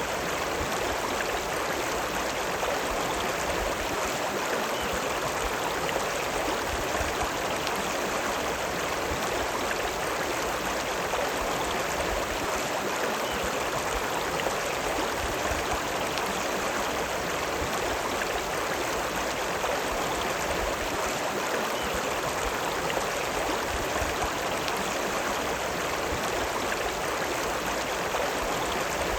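The River Lune running: a steady, even rush of flowing water.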